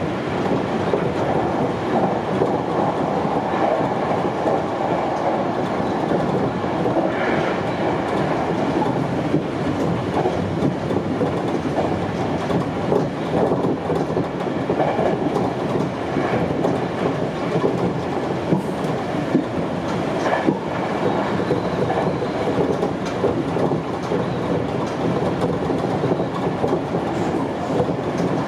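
Sanyo Electric Railway 5000 series electric train running along the line, heard from inside the driver's cab: a steady rumble of wheels on rail with a few short clacks over the rail joints.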